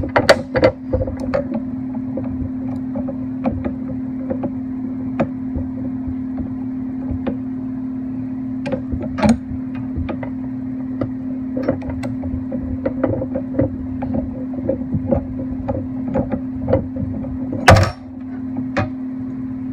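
Scattered clicks and light knocks of tools and metal parts being handled while a mini lathe is put back together, with one louder clunk near the end, over a steady hum.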